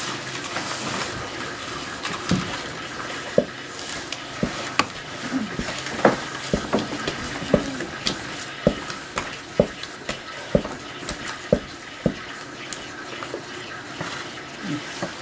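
Wooden paddle mashing cooked rice in an aluminium pot, knocking against the pot roughly once or twice a second, with soft wet squelching between strokes; the rice is being pounded to a paste for nuba laya.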